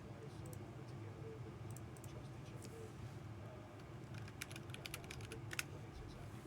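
Typing on a keyboard: scattered key clicks, then a quick run of clicks about four seconds in, over a steady low hum.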